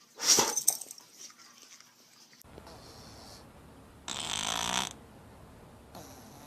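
An animal snoring, with one long raspy snore about four seconds in. A brief loud sound comes right at the start, before the snoring.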